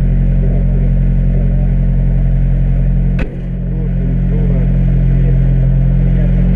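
Rally car's engine idling steadily, heard from inside the cabin. About halfway through there is one sharp click, after which the engine note dips briefly and comes back up.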